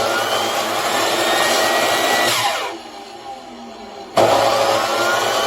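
Metabo HPT 10-inch compound miter saw's 15-amp motor running at full speed with a high whine, winding down a little over two seconds in, then switched on again about four seconds in.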